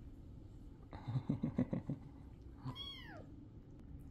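A grey tabby kitten meows once about three seconds in, a short call that rises and then falls in pitch. Just before it, about a second in, comes a short run of six or so low pulses, the loudest sound here.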